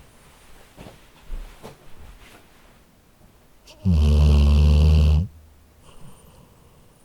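Labrador snoring in its sleep: one loud, low-pitched snore lasting over a second, about four seconds in, with soft breathing sounds between snores.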